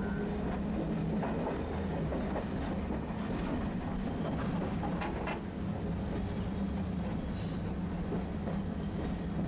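Tosaden street tram running on its rails, wheels clicking over the track with a steady low hum underneath.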